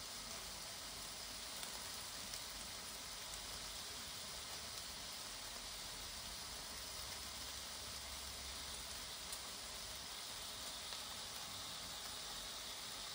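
Lamb chops sizzling inside a closed Tefal Optigrill Elite contact grill: a steady hiss with a few faint pops.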